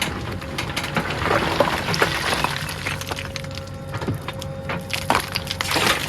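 JCB 3DX backhoe loader's diesel engine running under a steady whine, with repeated sharp cracks and knocks of earth and stones being crushed and scraped by the bucket.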